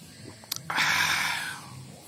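A man slurping a sip of coffee from a glass mug: a small click, then a loud airy slurp of just under a second that fades out.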